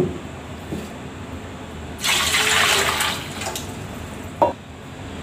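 Water poured into a steel cooking pot, with a louder gush lasting about a second from two seconds in, and a short knock near the end.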